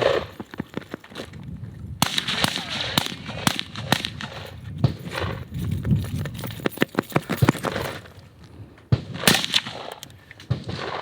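Gunshots in irregular strings, some fired in quick succession, with a louder pair of shots about nine seconds in, over low, indistinct talk.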